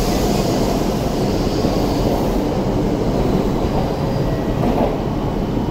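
E7 series Shinkansen train moving past along the platform: a steady rumble and rush of the passing cars, the higher hiss easing off about halfway through as the end car goes by.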